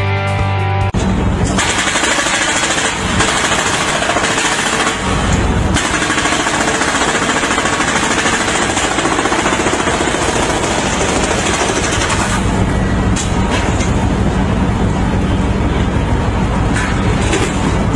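Hydraulic breaker on a compact demolition machine hammering concrete in rapid, continuous blows, loud throughout. About the first second is rock music with guitar before the cut to the hammering.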